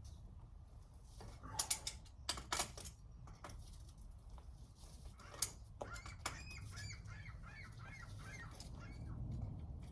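Metal fittings on a water meter being worked by hand: a few sharp clicks and knocks, then about six seconds in a rapid run of short squeaks, roughly five a second, for about a second and a half.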